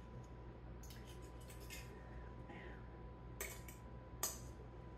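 Metal fork cutting through a crepe and scraping and clinking against a ceramic plate. A few light scrapes come about a second in, then two sharper clinks near the end, the second the loudest.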